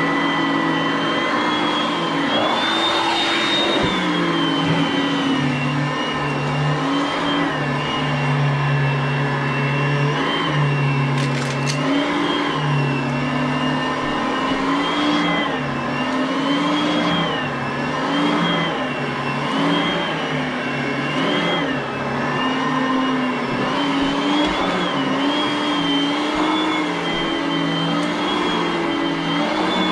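Oreck vacuum cleaner running continuously, its motor whine dipping slightly in pitch and recovering every second or so.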